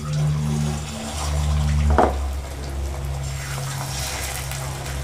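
Gram-flour fritters sizzling in hot refined oil in a kadai, the hiss thickening from about three seconds in, with a short knock about two seconds in. A steady low hum runs underneath.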